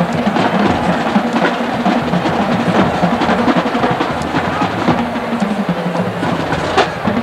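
Marching band drum line playing a percussion passage: rapid snare drum rolls and strikes over bass drum beats, with a sustained low pitched note beneath.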